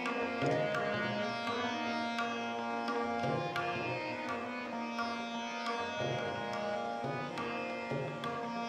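Instrumental interlude of Indian devotional music: a steady drone held throughout, a melody over it, and regular percussion strokes.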